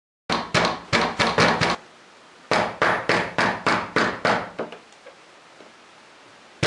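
Fast knocking on a wooden panelled door: a run of about six knocks, a short pause, then about eight more.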